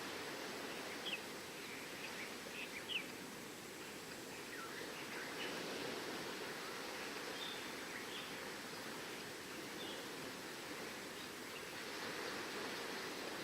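Steady wash of ocean surf, with short high bird chirps scattered over it; a few louder chirps come about one and three seconds in.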